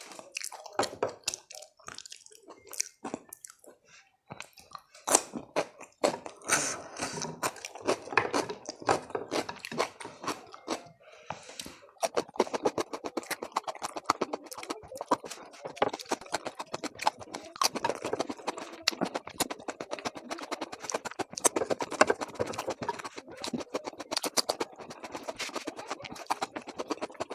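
Close-up eating sounds: a person chewing food, with many quick sharp mouth clicks. The clicks are sparse at first and come thick and near-continuous from about twelve seconds in.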